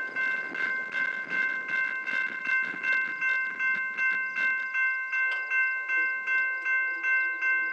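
Electronic level-crossing bell ringing in even strokes, about three a second. Under it, the rolling noise of a passing passenger train fades away about halfway through as the train recedes.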